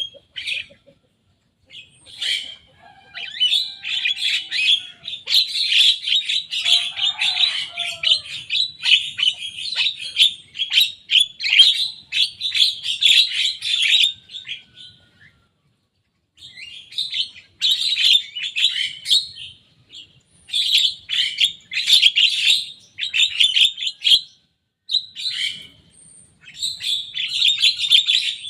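Young Javan myna singing in long runs of rapid, scratchy chattering notes, breaking off briefly about halfway through and again near the end.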